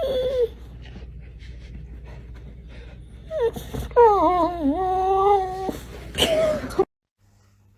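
A pet animal's drawn-out, wavering cry lasting about two seconds, with shorter cries just before and after it, ending in an abrupt cut.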